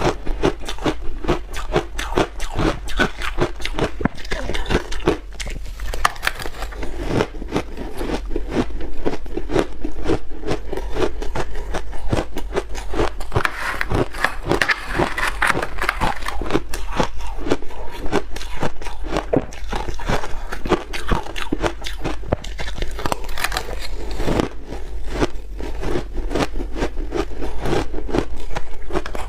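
Crunchy red ice being bitten and chewed, a dense, unbroken run of crisp crunches and cracks over a steady low hum.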